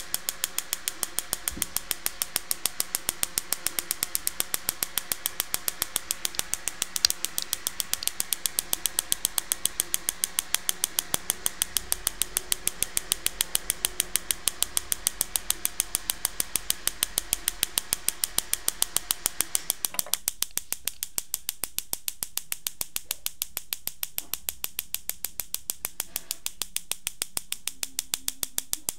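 Mini battery-powered 3-volt Tesla coil sparking: a rapid, even ticking of small spark snaps, with one louder snap about seven seconds in.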